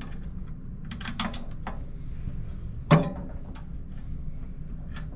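Small metal parts clinking and knocking as a grinder's burr holder and its screws are handled and fitted. There are a few light clicks about a second in, one sharp ringing clink about three seconds in, and more faint ticks near the end.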